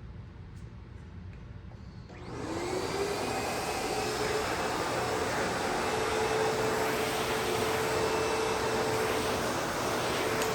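ProTeam Super Coach backpack vacuum switched on about two seconds in: the motor spins up with a rising whine and settles into a steady run.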